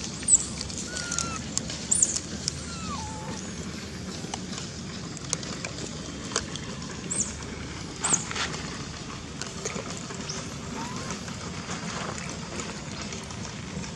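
Outdoor ambience with scattered short, high animal chirps and a few brief squeaky glides spread through it, plus faint clicks.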